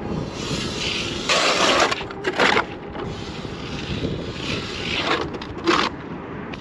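Hand ice auger cutting into clear pond ice, its blades crunching and scraping in uneven strokes, loudest about a second and a half in and again near the end.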